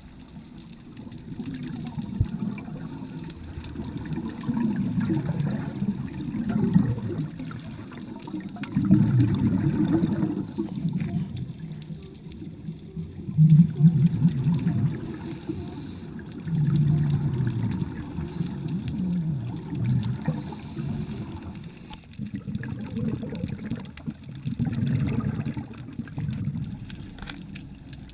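Scuba diver's exhaled regulator bubbles, a low gurgling rumble that swells and fades in bursts every few seconds, heard underwater through the camera housing.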